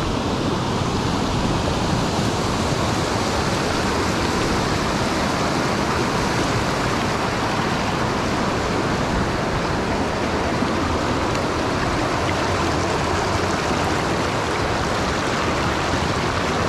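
Rocky mountain stream rushing over boulders and small cascades, a steady unbroken rush of water.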